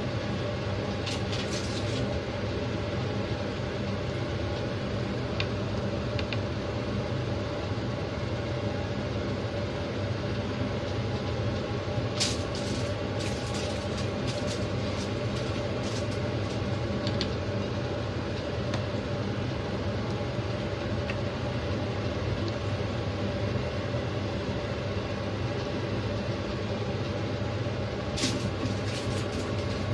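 A steady machine hum with no change in level. Over it come light crinkles and taps of aluminium foil as chicken wings are laid on a foil-lined tray: about a second in, for several seconds around the middle, and again near the end.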